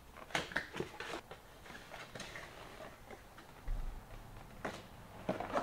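Small cardboard product box being handled and opened: a few light taps and scrapes of cardboard, with a dull bump about two-thirds of the way through.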